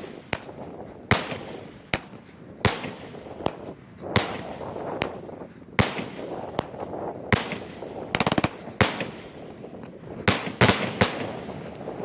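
Consumer fireworks salute cake firing its shots one after another: sharp, loud bangs roughly once a second, with a quick rattle of small reports about eight seconds in and several bangs close together near the end.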